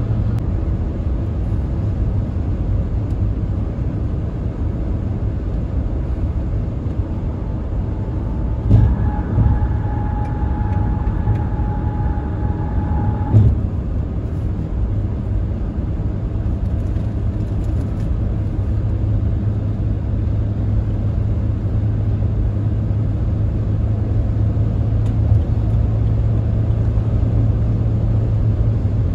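Car driving on a highway: a steady low rumble of road and engine noise. Midway, a steady tone sounds for about five seconds, starting and stopping with a thump.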